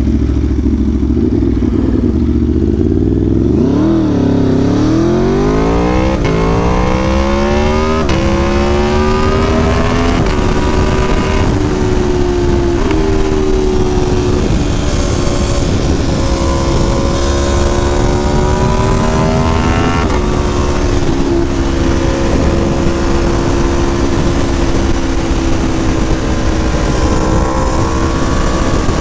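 Aprilia Tuono V4 1100 Factory's V4 engine through a LeoVince LV-10 Shorty exhaust, ridden hard. About four seconds in the revs climb steadily under acceleration, then it shifts up several times in quick succession and settles into a steady cruise, with a drop in revs about twenty seconds in.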